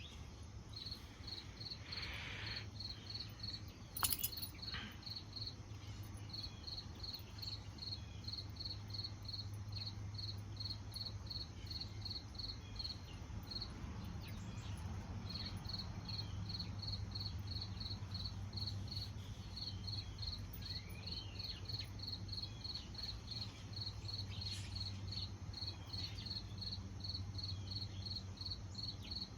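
Crickets chirping steadily, a high, even pulse about two to three times a second, over a low steady hum, with one sharp click about four seconds in.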